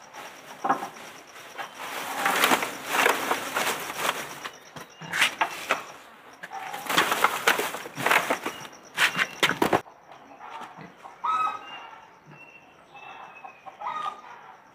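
Chickens clucking, with loud bouts of wing flapping and scuffling over the first ten seconds that stop abruptly about ten seconds in; short clucking calls follow.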